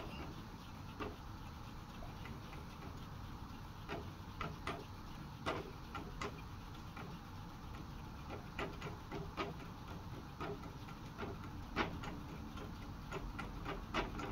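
Rubber-band motor of a balsa model airplane being wound by hand: faint, irregular light clicks and ticks as the twisted rubber is turned, bunching closer together near the end.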